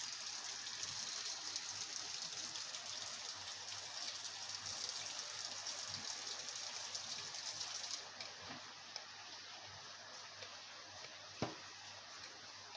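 Water running steadily into a sink drain as a gushing hiss. About eight seconds in it drops and thins, and a single sharp click comes near the end.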